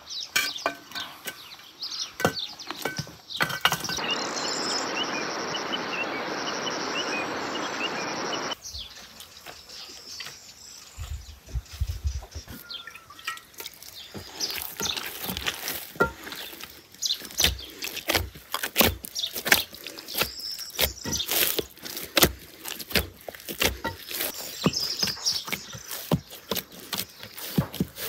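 Hands kneading bread dough in a glazed clay bowl: repeated short slaps and knocks as the dough is pressed and turned, at an irregular, fairly quick pace. Before that, a steady hiss lasting about four seconds.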